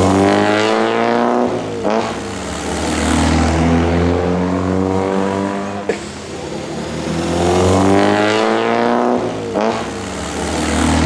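Classic sports cars driving past one after another, engines running with an engine note that drops in pitch as each goes by. The loudest passes come near the start and about eight seconds in.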